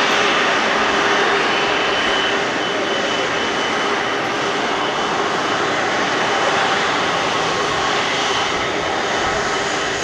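Boeing 777-300ER's GE90 turbofan engines running at low taxi power as the airliner rolls past: a steady rushing jet noise with a faint steady whine, easing slightly near the end.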